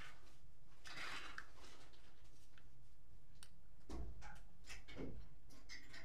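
Small clicks, a brief scrape and two soft knocks as a home theater amplifier circuit board and its aluminium heat sink are handled, over a faint steady low hum.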